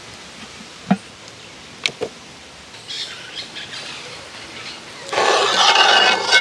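A metal spoon knocking and scraping in metal cooking pots as food is dished out, a few sharp clinks early on, with birds chirping faintly. Near the end a louder, harsh noise lasts just over a second.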